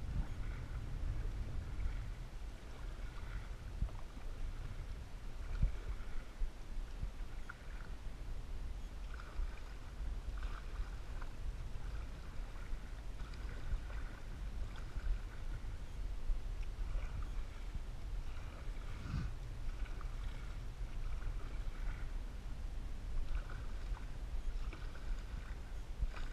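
Canoe being paddled on a lake: water swishing and gurgling around the paddle and hull in short repeated patches, over a steady low wind rumble on the microphone, with a few light knocks.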